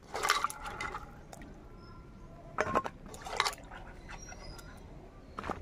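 Cut brinjal pieces being washed by hand in water in a clay bowl: short bursts of splashing and dripping as the hand swishes and lifts the pieces, with a sharp clack near the end as a wet piece is set down on a steel plate.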